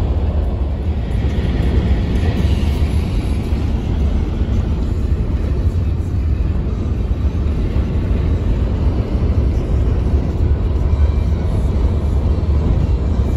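Steady road and engine noise inside a moving car's cabin, a deep, loud rumble throughout.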